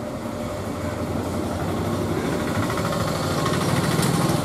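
A motor running steadily, a low rumble with a constant hum that grows louder toward the end.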